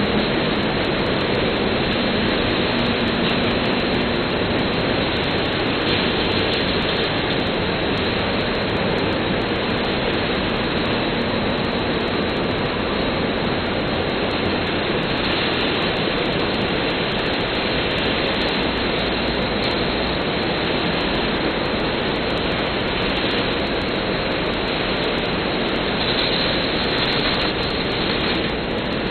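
Steady, loud industrial machinery noise, an even rushing hum with no distinct strokes, rhythm or impacts.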